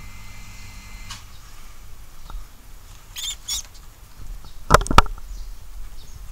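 Two short, high rat squeaks about three seconds in, then two sharp knocks about a second later, which are the loudest sounds.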